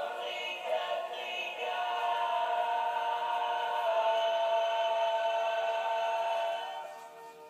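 Scottish terrier howling, its 'singing': a few short wavering howls, then one long drawn-out howl that sinks slightly in pitch and fades away near the end.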